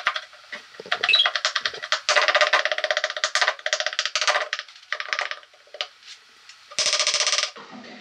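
Rapid knife chopping on a wooden cutting board, about ten strokes a second, in bursts with short pauses; the last burst stops shortly before the end.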